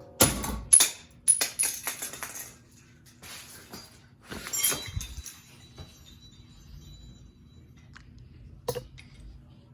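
A ceiling fan being smashed: a burst of crashes and clinking broken pieces over the first couple of seconds, another crash about four and a half seconds in, and a single sharp knock near the end.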